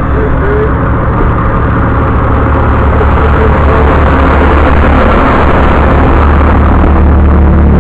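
Class 158 diesel multiple unit pulling away from the platform close by. Its underfloor diesel engines run under power with a steady low rumble, growing a little louder about three seconds in as the train gathers speed past the platform.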